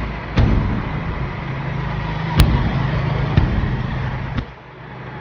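Engine running with a steady low rumble, broken by four sharp knocks, the loudest about two and a half seconds in. The rumble drops away about four and a half seconds in.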